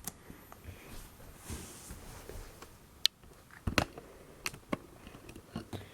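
A few separate light clicks and taps of plastic LEGO parts being handled, the loudest about three and a half seconds in.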